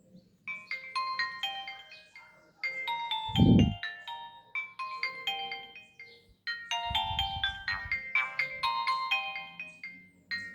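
Nokia 1616 ringtone playing from the phone's speaker: a melody of quick, bright, chime-like notes starting about half a second in, with a short break about six and a half seconds in. Two brief low rumbles sound under it, the louder about three and a half seconds in.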